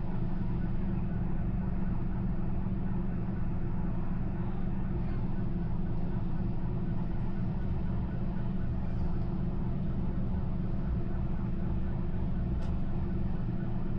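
Steady low hum and rumble, even in level throughout, with a faint click near the end.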